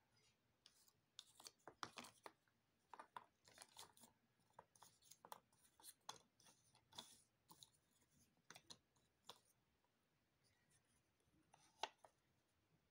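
Faint rustling, scraping and light clicks of cardboard jigsaw pieces being handled and slid, with one sharper tap near the end as a piece is brought down onto the puzzle.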